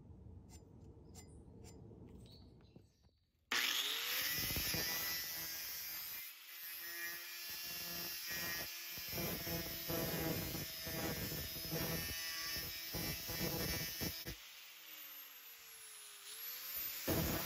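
Angle grinder starts suddenly about three and a half seconds in, its whine rising as it spins up. It then grinds the steel edge of a tomahawk head, the pitch and loudness wavering as the disc is pressed in and eased off. It eases with a sliding whine about fourteen seconds in, then bites into the metal again near the end.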